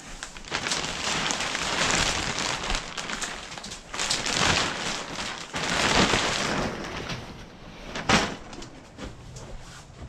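Plastic sheeting rustling and crinkling in long swells, with a short sharp crackle a little after eight seconds.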